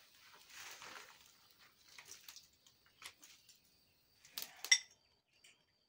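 Soft handling noises and a few light clicks, then a sharp double clatter with a brief metallic ring about four and a half seconds in, as cooking things are handled at a charcoal grill.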